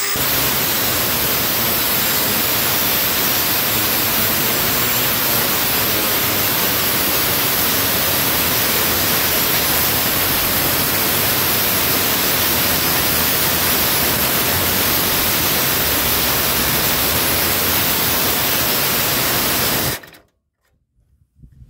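Milwaukee M18 FUEL 2980-20 cordless angle grinder cutting into a rusty steel frame with a worn metal-cutting blade: a loud, steady grinding hiss that holds even for a long stretch and then stops suddenly near the end.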